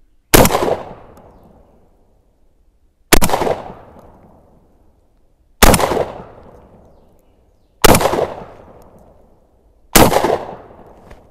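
Five shots from an Emperor Arms Mogul Ultra semi-automatic 12-gauge shotgun loaded with double-aught buckshot, fired from the hip. The shots come about two to three seconds apart, and each dies away in an echo.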